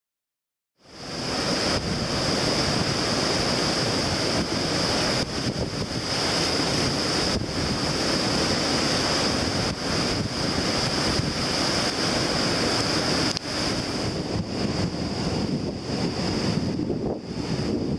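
Heavy storm surf breaking on a rocky shore, with strong wind gusting over the microphone; it cuts in suddenly about a second in after silence.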